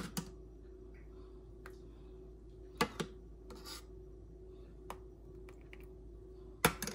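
A few sharp clinks of a utensil against cookware, mostly in quick pairs (at the start, about three seconds in, and near the end), with a short scrape between them over a faint steady hum.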